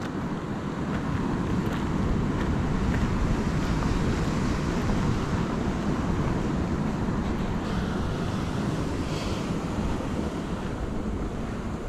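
Wind rumbling on the microphone over steady ocean surf.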